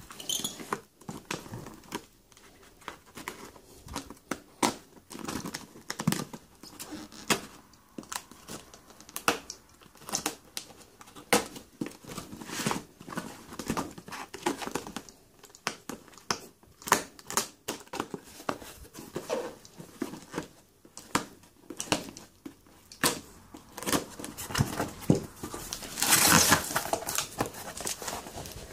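Hands unwrapping a taped parcel: packing tape and plastic wrapping crinkling and tearing in short irregular crackles, with a knife slitting the tape and cardboard being handled. About 26 seconds in comes a louder, denser stretch of rustling as the box is opened.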